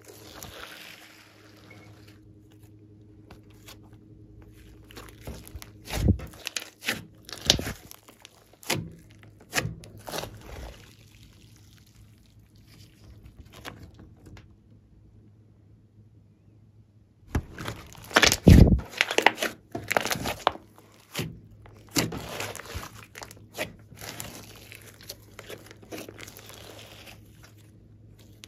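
Hands squeezing, stretching and folding a large ball of glossy slime with clay mixed in, making wet crackling pops and clicks. There is a quieter stretch in the middle, and the loudest run of pops comes about two-thirds of the way through.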